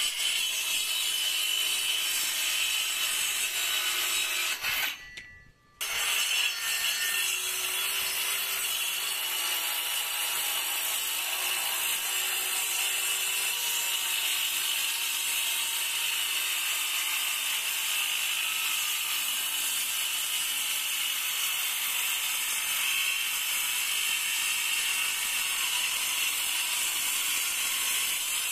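Ingco CSLI1401 20V cordless circular saw running and cutting through a thick wooden board: a steady, high-pitched whine and rasp of the blade in the wood. There is a short break about five seconds in, then the cut runs on steadily.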